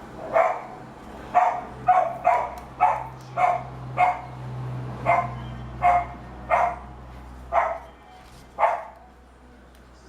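A dog barking repeatedly, about a dozen short barks at uneven intervals, stopping about nine seconds in.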